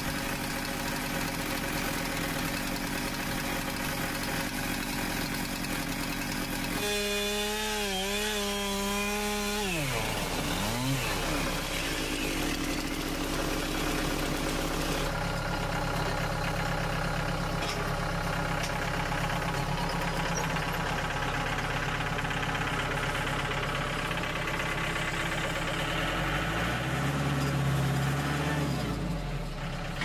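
Stihl MS 441 chainsaw running, revving high, then its pitch sliding down about ten seconds in. After that a Mahindra compact tractor's diesel engine runs steadily, rising and falling in pitch once near the end.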